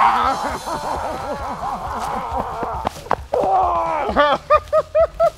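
Men whooping and laughing in celebration, with a few thumps around the middle and a quick run of short laughs near the end.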